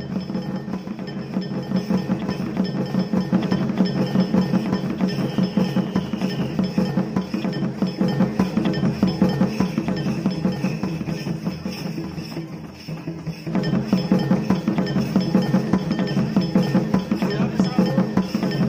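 Live folk drumming on large hand-played drums at a fast, steady beat for a stick dance, with wooden sticks clacking against each other in time. The beat thins out briefly a little past the middle, then picks up again at full strength.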